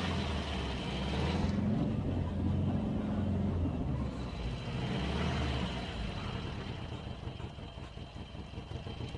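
Car engine running, heard from inside the car as a steady low rumble that slowly fades.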